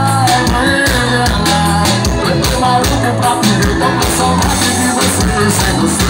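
Live band music through a loud stage sound system, with a singer's voice over a steady drum beat.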